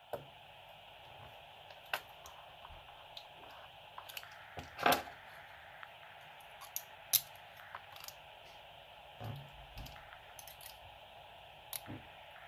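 Scattered small metallic clicks and taps as the pins and parts of a dismantled pin-tumbler lock are handled and set down, with a louder cluster about five seconds in, over a faint steady hiss.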